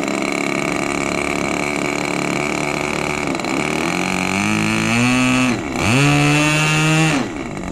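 RC model airplane's motor and propeller running, its pitch dipping and climbing several times as the throttle is pulled back and pushed up, with a sharp dip and rise about two thirds of the way through and a drop near the end.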